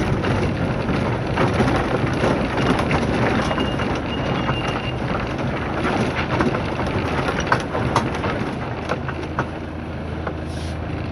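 Engine and road noise heard inside a moving vehicle on a rough gravel road, with scattered rattles and knocks from the body. It eases slightly over the last couple of seconds.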